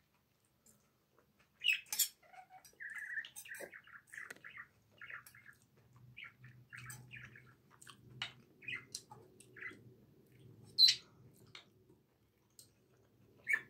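Eating from a stainless steel frying pan: a metal fork clinking and scraping against the pan, with a few sharp clinks, and short chewing and mouth sounds in between.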